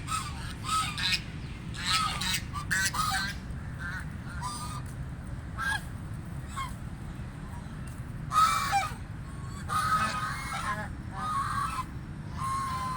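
Canada geese honking: a flock giving many short, irregular calls from several birds, some overlapping, over steady low background noise.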